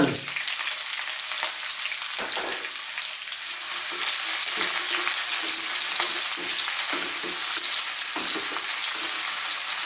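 Sliced onion and garlic sizzling steadily in hot oil in a wok, stirred with a wooden spatula that scrapes and knocks against the pan many times.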